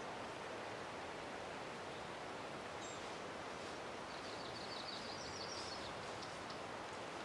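Steady rushing noise of Vernal Fall's water pouring down the granite cliff. A small bird gives a quick series of high chirps about four to six seconds in.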